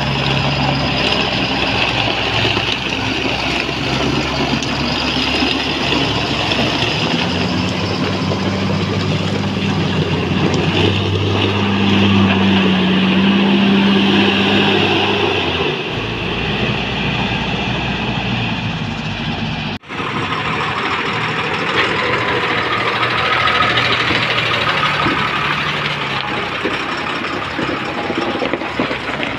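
Heavy diesel engines of a JCB 432 wheel loader and a dump truck running, the engine note stepping up twice as it revs. About two-thirds of the way through, the sound cuts abruptly to another diesel truck engine running.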